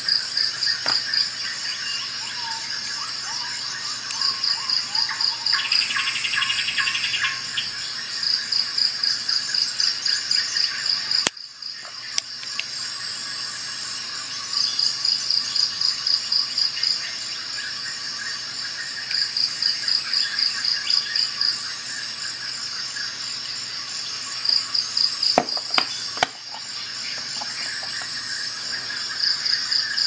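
Crickets chirping in trains of rapid pulses that come and go every few seconds over a steady high drone, with a couple of sharp clicks near the end.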